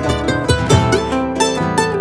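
Plucked melody on a charango over acoustic guitar accompaniment, an instrumental passage of a folk song.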